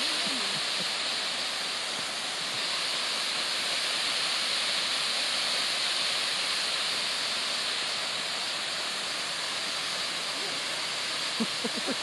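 Yomogi Fudō waterfall: the steady rushing hiss of falling water. A person's voice comes in briefly near the end.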